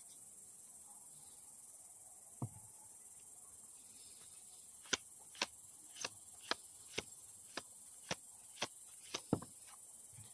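Tarot cards being shuffled by hand, a sharp card click about twice a second, mostly from about five seconds in. Under it runs a steady high chorus of insects.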